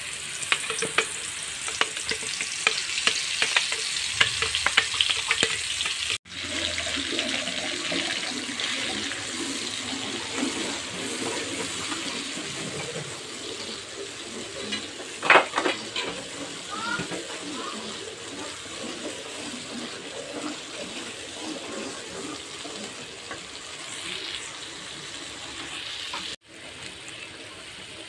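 Ground spice paste sizzling as it fries in oil in a wok, with a metal spatula scraping and clicking against the pan as it is stirred, and one sharper knock about halfway.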